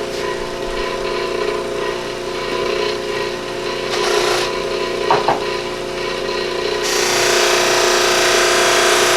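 Electric buffer motor running with a steady hum while a piece of deer antler is pressed against the spinning compound-loaded buffing wheel, giving a rubbing hiss that grows louder about seven seconds in. Two brief squeaks about five seconds in.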